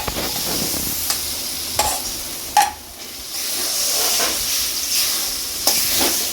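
Spatula stirring and scraping a thick dhoka mix in a kadai over the heat, with a steady sizzle and a few sharp knocks of the spatula against the pan. The mix is being cooked down until it stiffens.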